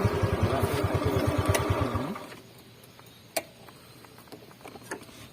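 Background music with a fast, even pulse that cuts off about two seconds in, leaving a quiet outdoor background with a few faint clicks.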